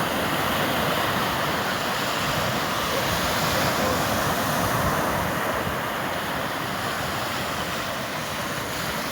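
Sea waves washing ashore: a steady, continuous rush of surf that swells a little midway and then eases slightly.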